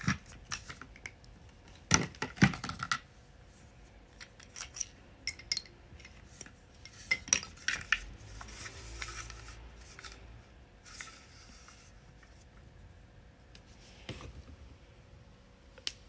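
Irregular clicks and light knocks from a computer keyboard and mouse, with a louder cluster of clacks about two seconds in and another around seven seconds.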